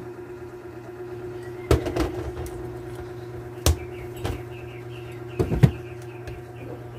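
A handful of sharp knocks and clacks, about five spread through, over a steady low hum.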